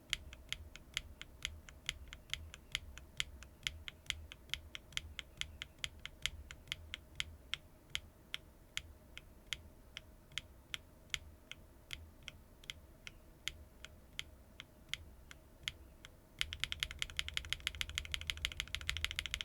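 A single HMX Cream Latte linear mechanical keyboard switch with a keycap fitted, pressed over and over at about three to four strokes a second, each stroke a short sharp clack. About sixteen seconds in, faster and louder clacking of keys begins.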